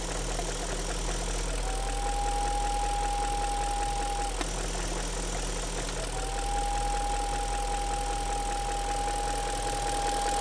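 BMW M62TU V8 idling with a high, steady whistle over the engine note. The whistle cuts in about a second and a half in, drops out halfway through, and comes back about six seconds in. The owner thinks it comes from somewhere around the manifold.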